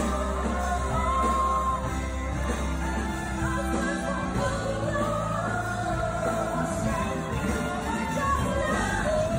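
Live band with several singers performing a song: sung melody over steady bass, drums and keyboards.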